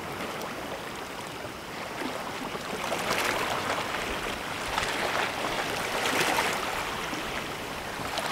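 Seawater washing and lapping at the shore as a steady rushing hiss, swelling up a few times partway through.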